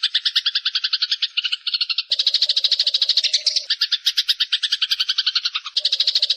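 Eurasian tree sparrows giving a long, rapid chattering call, about ten short notes a second without a break. The chatter changes abruptly about two seconds in and again near the end, as if separate recordings are joined.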